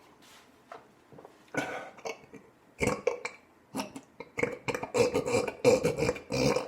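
A man belching deliberately: a few short burps, then a long, drawn-out belch held on a steady pitch over the last couple of seconds, the loudest part.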